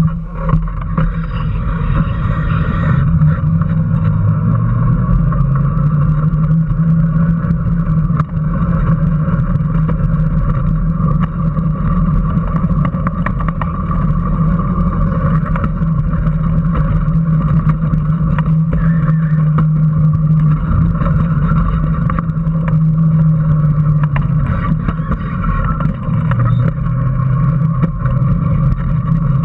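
Small electric racing car's motor and drivetrain whining as it pulls away, the pitch rising over the first few seconds and then holding steady. It drops about twenty-five seconds in and climbs again near the end, with many small clicks and knocks from the car throughout, heard from on board.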